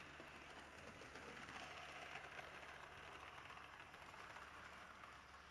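Model train running on the layout: a faint, steady rolling of its metal wheels on the track.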